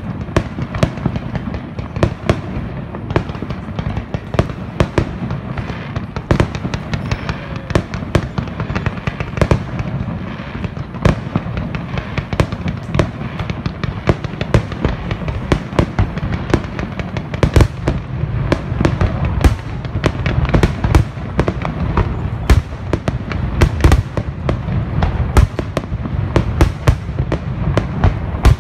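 Fireworks display: a dense run of sharp bangs and cracks, several a second, over a steady low rumble.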